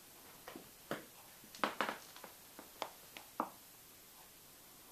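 Faint, irregular light clicks and knocks, about ten over three seconds, the loudest a quick pair near the middle, then room tone.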